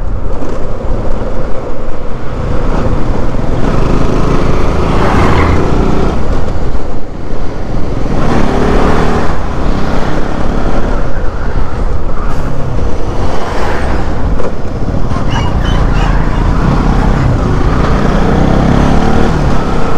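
On-board sound of a Bajaj Pulsar NS200 single-cylinder motorcycle being ridden at road speed. The engine note rises and falls a few times as the throttle is worked, over a steady rush of road noise, with other traffic passing close by.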